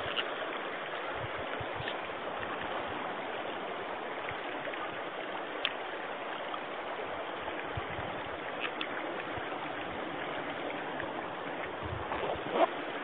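Shallow stream water running over rocks, a steady rushing hiss, with a few faint ticks.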